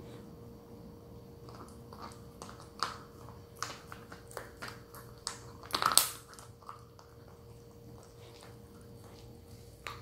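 Welsh corgi chewing a lamb's neck treat: scattered sharp crunches and clicks, the loudest about six seconds in.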